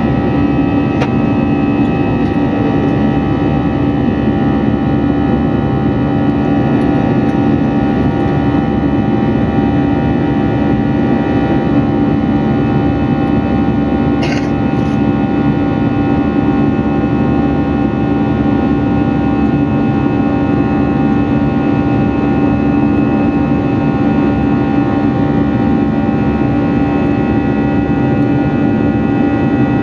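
Airbus A320-200 jet engines heard inside the passenger cabin: a loud, steady rush with a low hum and several higher steady tones that hold without change. A brief click about halfway through.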